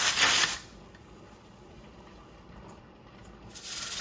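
Steam hissing from the vent pipe of an All American pressure canner, cut off abruptly about half a second in as the 10-pound pressure-regulator weight is set on the vent. It stays quiet until near the end, when the hiss comes back with rattling as the weight jiggles at 10 pounds of pressure.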